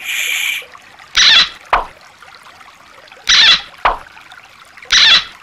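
Shallow stream water splashing and dribbling as a hand dips a small plastic toy in and out: three short splashes about two seconds apart, each followed by a quick lower drip.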